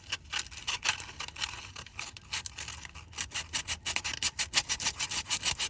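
Sandpaper rubbed back and forth on the metal contact of a truck starter's solenoid power cable, in quick repeated strokes about three to four a second, cleaning grit and corrosion off for a good electrical connection.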